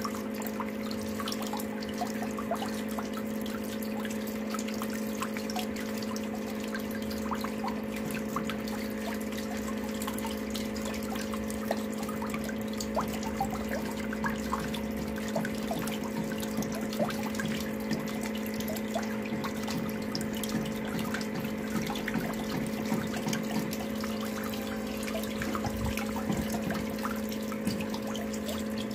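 Water swirling and trickling in a whirlpool vortex, with many small scattered drips and splashes, over a steady low hum.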